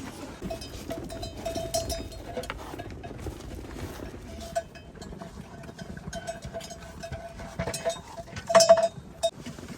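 Livestock with a bell ringing on and off, with a louder ring and clatter about eight and a half seconds in.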